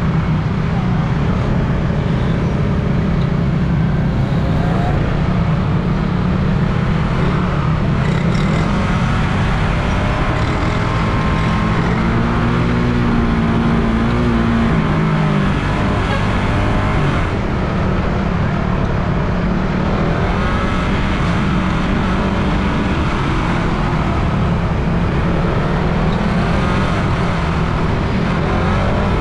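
Suzuki Raider R150 Fi's single-cylinder four-stroke engine running steadily under way, with a rush of wind and road noise over it. About halfway through, the engine note rises and then drops back.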